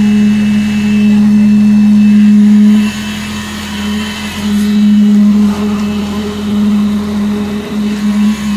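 Concrete poker vibrator humming at one steady pitch while it compacts freshly poured concrete in the barrel piles. Its note breaks off briefly about three seconds in and dips a couple of times near the end.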